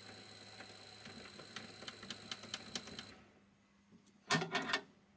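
Mini lathe running with a faint steady motor whine and a run of quick ticks, then falling silent about three seconds in. About a second later comes a short cluster of metal clicks as the 3-jaw chuck is handled.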